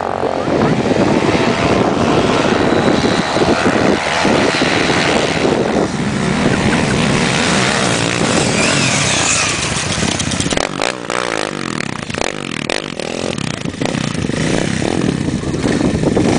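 Dirt bike engines revving hard on a steep hill climb, with the revs rising and falling sharply in the second half.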